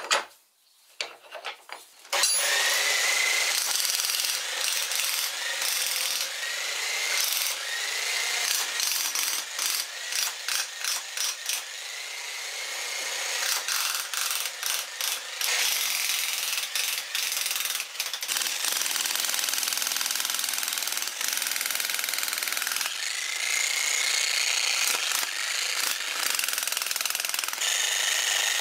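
Vevor electric demolition jack hammer with a clay spade chisel hammering into packed soil and rubble. It runs in long stretches with short pauses and restarts. A few faint clicks come before it starts about two seconds in.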